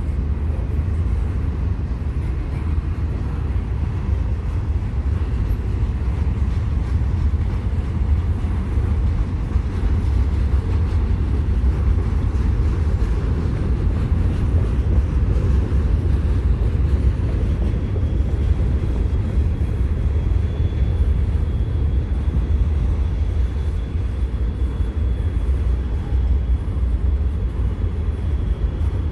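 Intermodal container train rolling past with a steady rumble of wheels on rail. A faint, high, steady squeal comes in about halfway through.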